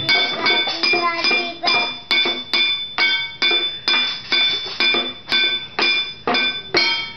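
A toddler drumming with a wooden spoon on a metal cooking pot: a steady beat of about two and a half strikes a second, each stroke ringing with a metallic clang.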